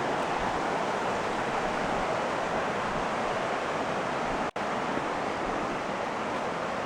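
Steady rushing of river water, an even noise without any rhythm, that drops out for an instant about four and a half seconds in.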